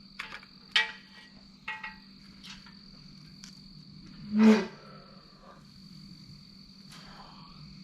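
Metal engine parts and tools clinking and knocking during a diesel engine teardown: a few sharp ringing clinks in the first two seconds, a louder clunk about four and a half seconds in, and a light tap near the end.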